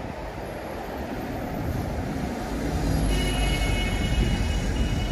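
A heavy vehicle going by: a low rumble swells about three seconds in, joined by a high, steady squeal.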